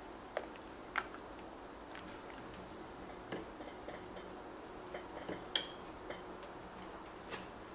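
Wooden spatula working thick sauce in an enamelled cast-iron pot, giving scattered light clicks and knocks against the pot, the sharpest about a second in and again around five and a half seconds. A faint steady hum runs underneath.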